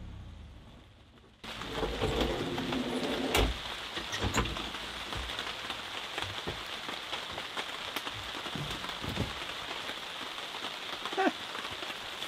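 Steady rain falling, with scattered drips and taps. It cuts in about a second and a half in.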